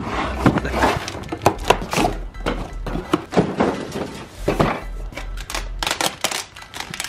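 Cardboard packing being handled, with repeated knocks and thunks as a box of heavy-duty tool box casters is set down on concrete. Near the end a utility knife slits its packing tape. Background music with a low pulsing beat runs underneath.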